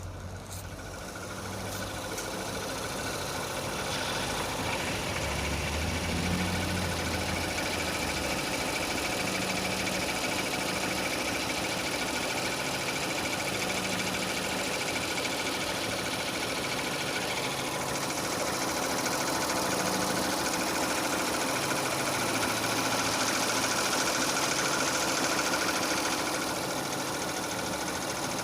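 Renault Scenic II's K4M 1.6-litre four-cylinder petrol engine running at idle with a fast, steady knock from low down in the engine. The knock appeared at about 202,000 km and grows as the engine warms up.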